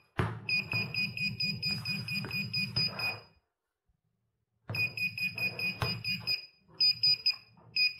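GP-Pointer handheld pinpointer metal detector (a Chinese copy of the Garrett Pro-Pointer) giving its rapid alert: high beeping at about eight beeps a second, with its vibration motor buzzing in time. It is set off by the metal drawer slides in the desk beneath it. It breaks off for about a second and a half a few seconds in, then resumes in shorter runs.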